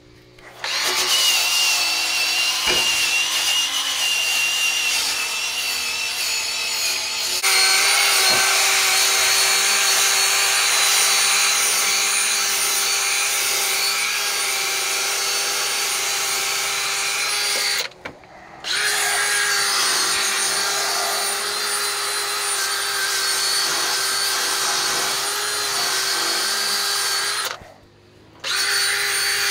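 A handheld power tool, drill-type, running in long steady stretches as corrosion is ground and brushed off metal. Its pitch steps up about a quarter of the way in. It stops briefly twice, once around the middle and once near the end, before a last short burst.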